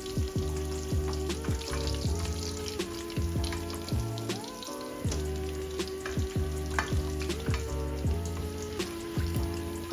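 Chicken pieces frying in hot oil in a pan: a steady sizzle with many small crackles and pops. Background music with held notes plays along with it.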